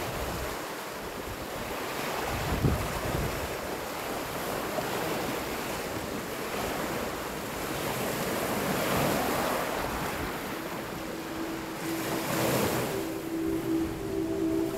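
Lake Superior waves washing onto a pebble beach, swelling and easing in turn, with wind buffeting the microphone. A few steady music tones come in near the end.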